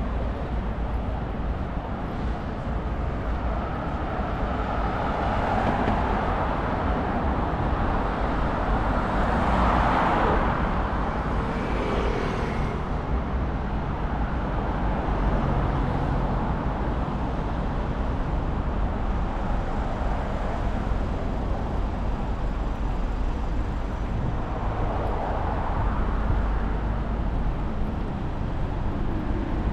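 Steady road traffic noise, with one vehicle passing closer and louder about ten seconds in.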